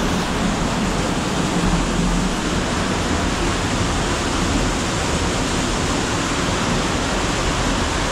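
Waterfall: a steady, loud rush of falling water with no breaks.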